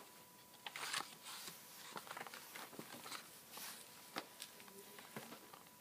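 Pages of a hardcover picture book being turned and the book handled: scattered soft paper rustles and light taps, all faint.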